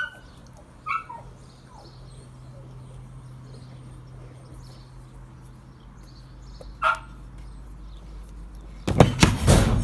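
A few short, high animal calls over a low steady hum while the trailer's release bolt is undone, then a loud clattering rattle near the end as the freed breaching bar of the Ifor Williams horse trailer drops from the partition wall.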